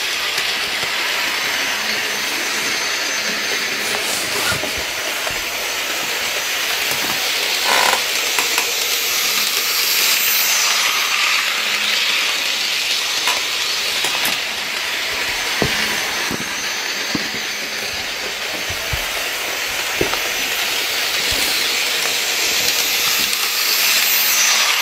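Model train running on floor-laid track: a steady hissing whir of motor and wheels with scattered light clicks, growing louder near the end as the train passes close by.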